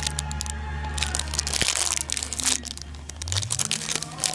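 Clear plastic wrapper crinkling in a dense run of small crackles as a foam squishy toy is squeezed through it. A low steady hum sits underneath and drops away about three seconds in.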